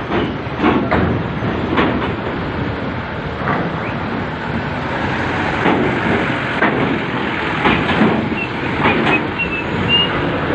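Heavy trucks rolling off a ferry over the steel loading ramp: irregular metallic clanks and knocks, roughly one a second, over a steady rumbling noise.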